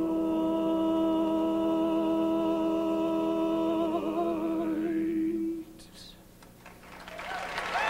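Barbershop quartet of four men's voices holding a sustained a cappella closing chord, which cuts off about five and a half seconds in. After a brief hush, audience applause starts to swell near the end.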